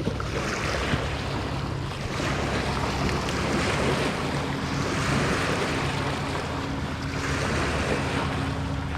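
Water sloshing and lapping around someone wading, swelling and easing several times, with wind rumbling on the microphone and a steady low drone underneath.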